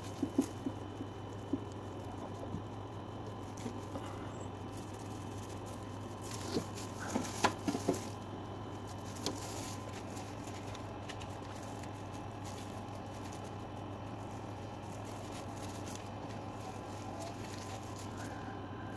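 Scattered light taps and scuffs, a few in the first second and a cluster about seven to eight seconds in, over a steady low hum.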